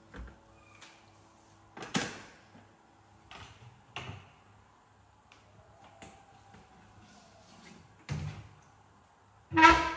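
Kitchen handling noises: a string of separate knocks and clunks as things are picked up and set down and a wall cabinet is opened. The loudest is a sharp bang with a brief ring near the end, like a cabinet door shutting or a container set down hard.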